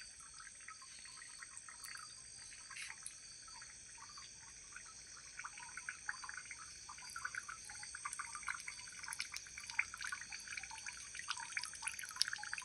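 Night insects trilling steadily at a high pitch, with many quick clicks and chirps that grow busier in the second half.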